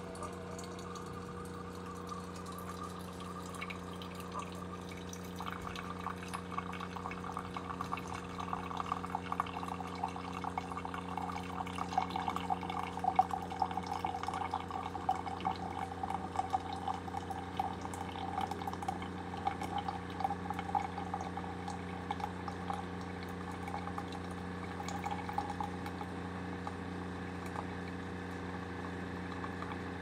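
Keurig single-serve coffee maker brewing: a thin stream of coffee trickles and splashes into a ceramic mug over the machine's steady hum. The brewer only trickles, a fault the owner can't explain.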